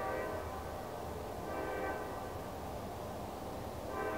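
Horn of an approaching Norfolk Southern GE C44-9W (Dash 9) locomotive blowing for a grade crossing: one blast trails off within the first half-second, a weaker brief note sounds about one and a half seconds in, and a new blast starts just before the end. A low rumble runs underneath.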